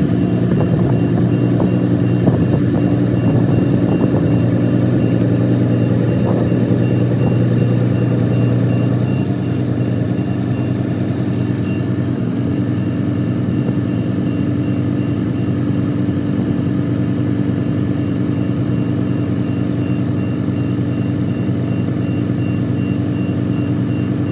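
Vehicle engine idling steadily with a low, even hum, a little quieter from about nine seconds in.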